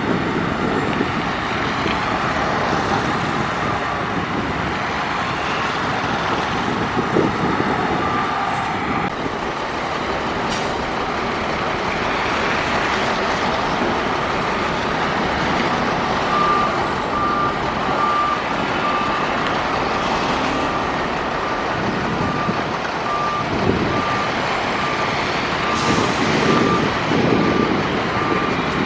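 Heavy diesel earthmoving machinery running steadily at a land-fill site. About halfway through, a reversing alarm starts beeping regularly, a little faster than once a second, and a short hiss of air comes near the end.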